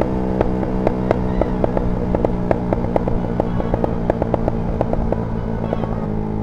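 Honda Sonic 150R single-cylinder motorcycle engine running on the move with a steady drone, its exhaust popping and crackling irregularly several times a second. The popping is the result of the O2 sensor being disconnected.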